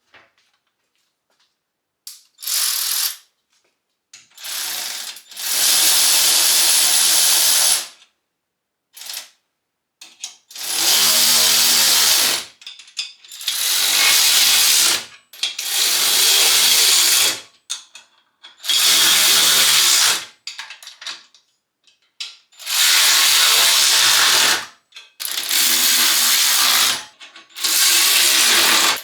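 A power driver running the bolts of a steel dumbbell rack tight, in about ten short runs of one to two and a half seconds each, with pauses between them as it moves from bolt to bolt.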